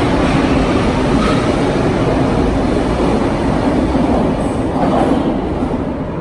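Bucharest Metro train running through a station: a loud, steady rumble of wheels on rail that starts to fade near the end as the train moves off.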